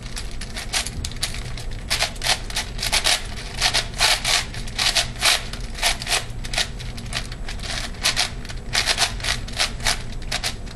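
ShengShou 8x8x8 puzzle cube being turned fast by hand: a quick, irregular run of plastic clicks and scraping as the layers slide and snap into place.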